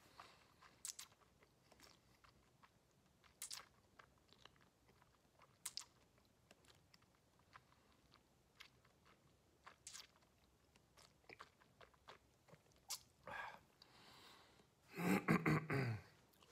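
Faint wet mouth clicks and lip smacks from a man chewing a sip of whisky around his mouth, scattered irregularly. Near the end comes a breath out and then a louder, voiced throat sound lasting about a second.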